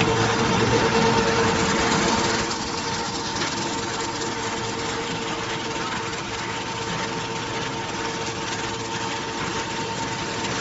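Bugles-type snack forming machine running: a steady mechanical hum with a constant whine, its dough-cutting rollers and cone-forming rods turning. Louder for the first two seconds or so, then a little quieter and steady.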